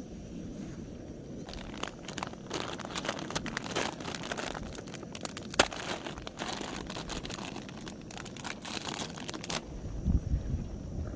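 Crinkling and rustling of handled material, a dense run of irregular crackles from about a second and a half in until near the end, with one sharper crack in the middle.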